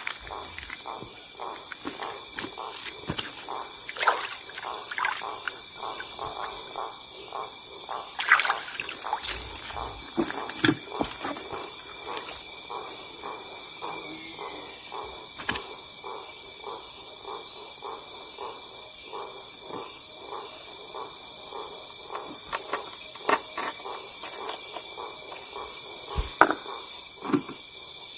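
Steady high-pitched chorus of night insects, with scattered faint clicks and a few sharper knocks over it.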